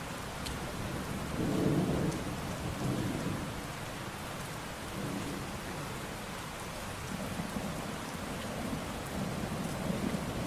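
Steady rain falling, with low rumbles of thunder swelling about a second and a half in and again near the end.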